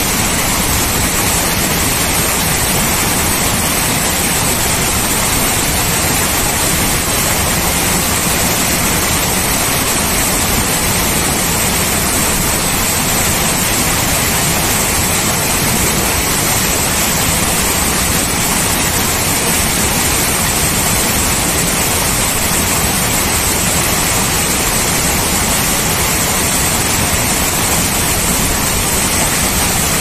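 Waterfall pouring down a rock face into a shallow pool: a loud, steady rush of falling water that does not change.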